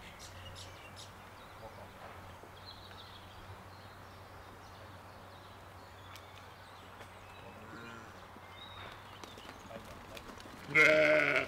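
Sheep bleating: one faint bleat about eight seconds in and one short, loud bleat near the end, over a quiet, steady outdoor background.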